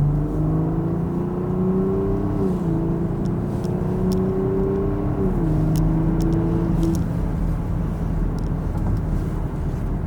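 BMW X5 50e's turbocharged 3.0-litre inline-six through a DCE Parts V2 aftermarket exhaust, heard from inside the cabin, pulling through the gears. The engine note rises, drops at an upshift about two seconds in, rises again and drops at a second upshift about five seconds in, then settles to a steady drone.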